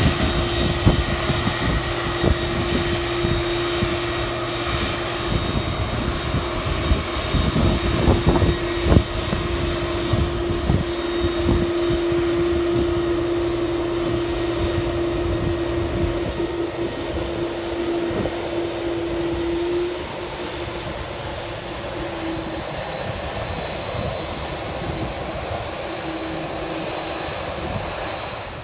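Boeing 767 airliner's twin jet engines running steadily as the aircraft rolls along the runway, a continuous rumble with a steady hum and whine. It eases a little about two-thirds of the way through as the aircraft moves away.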